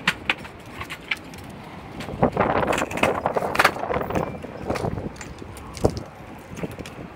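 Small wheels of a Flicker scooter rolling over a concrete driveway, with scattered clicks and rattles from the scooter.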